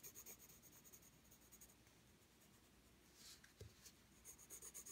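Faint scratching of a graphite pencil shading on drawing paper. About three seconds in, a brief rustle of the sheet being slid round on the table.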